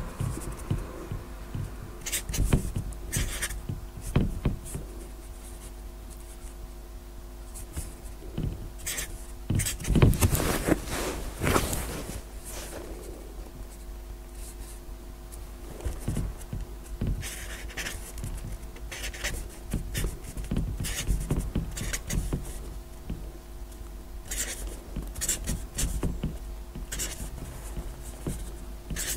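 Marker pen writing digits, short irregular scratchy strokes on the board one after another, with a louder stretch of strokes about ten seconds in. A faint steady hum runs underneath.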